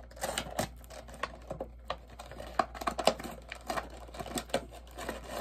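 Hands opening and unpacking a small cardboard bobblehead box: irregular light clicks, taps and rustles of the packaging.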